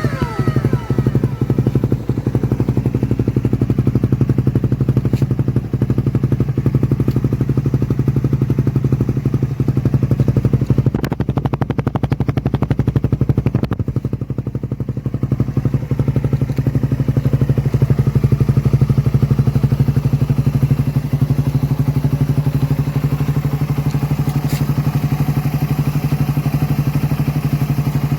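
Suzuki Raider 150's single-cylinder four-stroke engine running steadily through a big elbow header and gutted exhaust canister: a crisp but not loud exhaust note, with a slight dip in level about halfway through.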